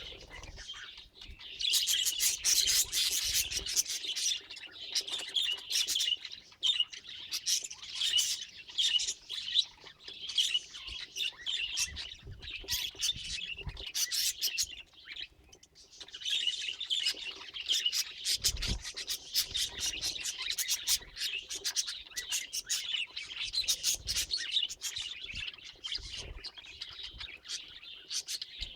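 Budgerigars chattering: quick chirps, clicks and warbles in a rapid run, with a short break about halfway through.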